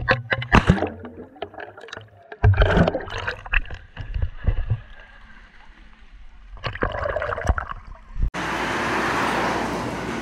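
Pool water splashing and sloshing around a handheld action camera at the surface, in irregular sharp bursts. About eight seconds in it cuts abruptly to a steady roadside hubbub of traffic and diners.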